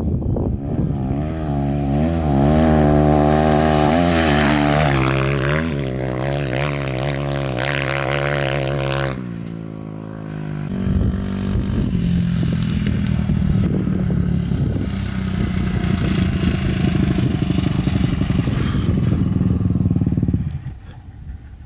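Dirt bike engine running, its pitch rising and falling with the throttle. It eases off about nine seconds in, then runs more steadily, and drops away near the end.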